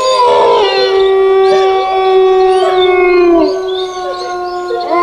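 Horror ringtone of long held, howl-like tones at several pitches at once, one of them sliding down about three and a half seconds in, with a new rising tone coming in near the end.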